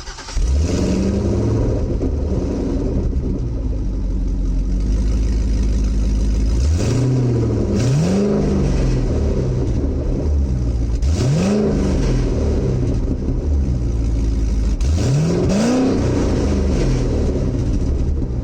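C6 Corvette's LS2 V8 starting up and idling through a modified exhaust (gutted cats, X-pipe, Borla axle-back, spacers in place of the donut gaskets), blipped four times. The revs rise and fall quickly, and the exhaust is louder from the spacer mod, which sounds a heck of a lot better.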